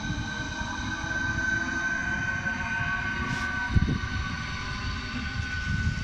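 Škoda Vagonka 1Ev (ČD class 471 CityElefant) double-deck electric multiple unit moving through the station: a steady high whine over the rumble of its wheels on the rails, with one louder thump about four seconds in.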